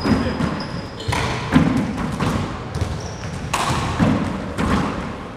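Handball rally: the hard rubber handball smacking off the court walls and hardwood floor and slapped by hand, a string of sharp impacts at uneven intervals, with a few short high sneaker squeaks on the wooden floor.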